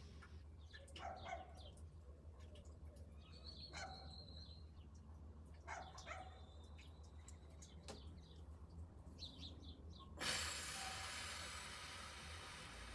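Faint distant dog barks and thin bird chirps. About ten seconds in, a steady hiss starts suddenly and slowly fades.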